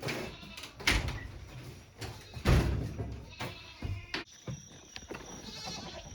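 An excited farm animal calling, expecting food, with several knocks and thumps, the loudest about two and a half seconds in.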